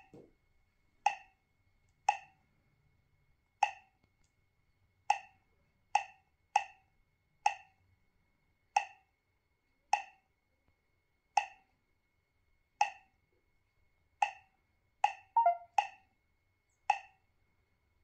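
A 7-inch touch-screen truck GPS navigator playing its short 'bloop' key-press sound from its speaker, once for each tap on a menu button. There are about fifteen presses at irregular spacing, from half a second to a second and a half apart. A quick run of a few different tones plays at about fifteen seconds in.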